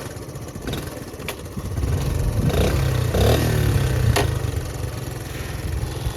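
Honda C70's small single-cylinder four-stroke engine running as the bike is ridden; it grows louder about two seconds in, changing in pitch, then eases off after about four seconds.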